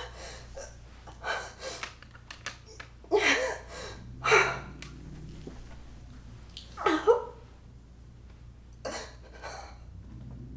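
A person crying: ragged, breathy sobs and gasps in uneven bursts, the loudest about three, four and seven seconds in, over a low steady hum.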